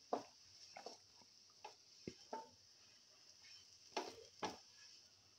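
A spatula scraping and knocking against a nonstick frying pan as fried bitter gourd pieces are scooped out: a string of short, separate scrapes, the loudest two about four seconds in.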